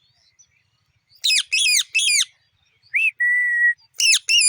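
Pet Alexandrine parakeet ('pahadi' parrot) calling. After about a second of quiet it gives three loud, harsh calls in quick succession, then a short steady whistle, then more harsh calls near the end.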